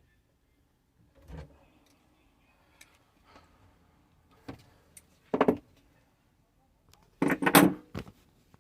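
Wrench clinking and rattling against the supply-line nuts as the faucet's hot and cold lines are tightened to the shut-off valves under the sink. It comes in a few short bursts of clatter, the loudest near the end.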